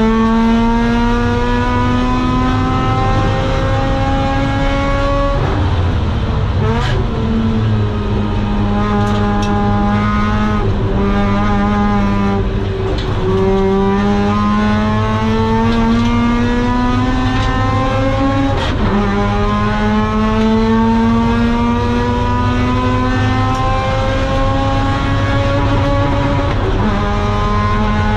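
Mazda RX-8's 192 PS four-port Renesis two-rotor rotary engine at racing pace through a home-made long-tube exhaust with a Borla muffler. The pitch climbs steadily in each gear and drops sharply at the gear changes, with a few short sharp cracks where the car slows and shifts down.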